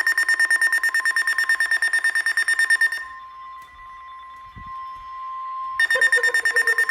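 A weather radio receiver's alert alarm beeping rapidly, several beeps a second, on steady pitches. About three seconds in the beeping pauses, and the steady single-pitch NOAA Weather Radio warning alarm tone comes through more quietly, announcing an incoming flood warning. The rapid beeping resumes near the end.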